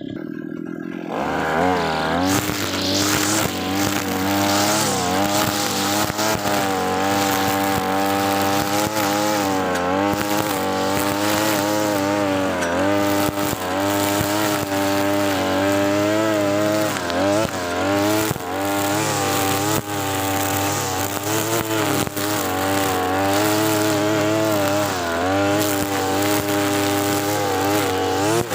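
Brush cutter engine at full throttle with a trimmer head cutting thick, dense grass; it opens up about a second in, and its pitch keeps dipping and recovering as the grass loads the head.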